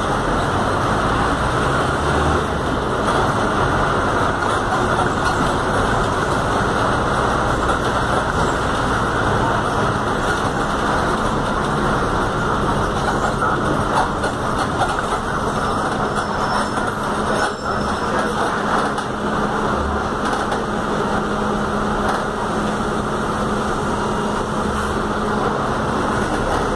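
Inside a Volkswagen 17-230 OD city bus under way: the diesel engine and running gear make a steady drone and rumble, with a low hum that grows stronger about halfway through.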